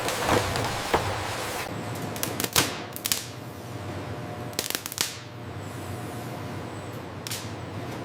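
Processing-line machinery running with a steady hum, broken by sharp clacks and clicks at irregular moments, some in quick pairs.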